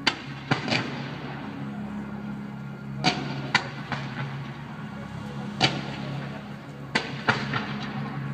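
Fireworks going off: a string of sharp bangs at uneven intervals, some in quick pairs, over a steady low hum.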